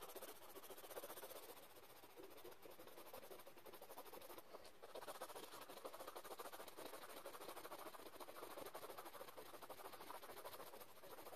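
Faint, rapid scratching of shading strokes drawn on paper, pausing briefly about halfway through.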